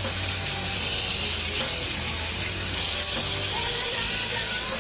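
Tap water running steadily into a bathroom sink as hand-washed bras are rinsed, a constant hiss of water. Faint music plays underneath.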